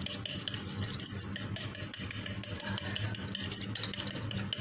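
A metal fork whisking beaten egg and milk in a ceramic bowl, its tines clicking rapidly and evenly against the bowl.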